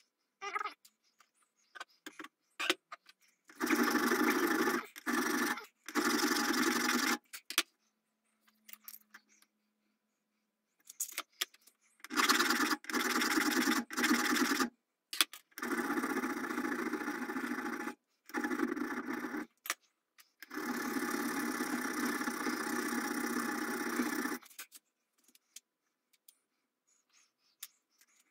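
Hand file scraping back and forth in a dovetail notch cut into a steel rifle barrel, cutting the seat for a front sight. The strokes come in runs of one to four seconds with short pauses between them; the longest run is near the end.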